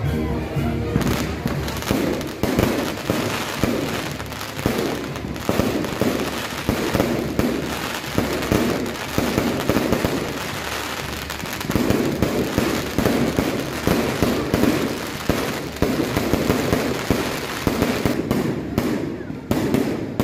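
Fireworks going off in a rapid, continuous run of bangs and crackling pops, denser in several stretches.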